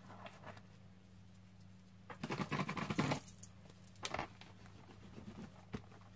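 A crumpled paper towel rustling and crinkling as it is rubbed over a craft mat, loudest for about a second a couple of seconds in, with a shorter rustle and a few light taps after. A faint steady electrical hum runs underneath.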